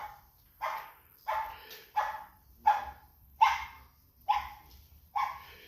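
A dog barking repeatedly, about eight short barks spaced a little under a second apart.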